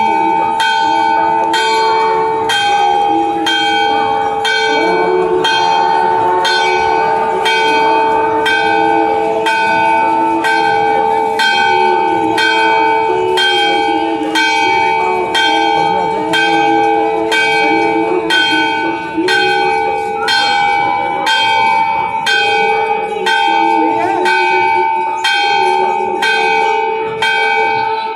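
Temple bells being rung over and over at a steady pace, a little faster than one strike a second, their ringing tones carrying on between strikes. Crowd voices murmur underneath.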